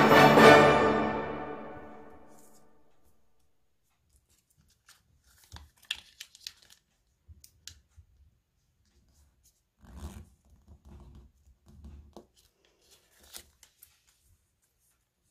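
Background music fades out. Then a sheet of colored origami paper gives short, scattered rustles and crisp creasing sounds as it is folded in half and unfolded.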